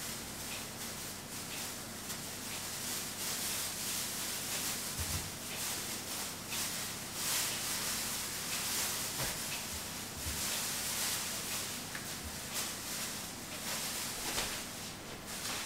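Faint scraping and rustling of a utensil and hands working food on a cutting board, with a few soft knocks, over a steady hiss.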